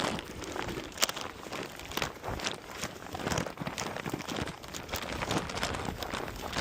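Irregular footsteps and shuffling with scattered light knocks and clicks.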